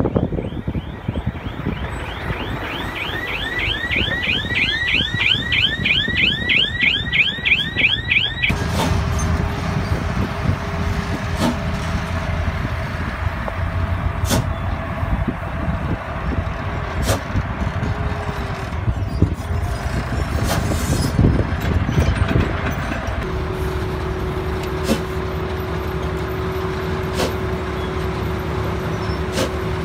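Heavy diesel dump trucks running at a construction fill site. For the first several seconds a fast, repeating warbling chirp, like a warning alarm, sounds over the engine noise. After that the trucks' engines run on, and a steady whine sets in near the end.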